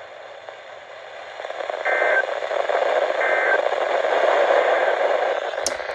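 Weather radio receiver hissing with static between broadcasts. Two short two-tone data chirps about a second apart are typical of the EAS/SAME end-of-message bursts that close an alert. A sharp click comes near the end.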